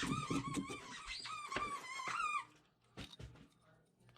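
A high-pitched, wavering squeak with scattered clicks, stopping about two and a half seconds in, followed by a single click.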